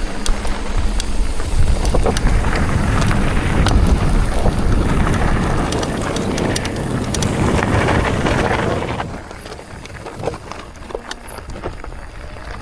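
Mountain bike rolling over rough ground: tyre noise, rattles and clicks, with wind buffeting the microphone, until about nine seconds in, when it drops away to quieter rustling.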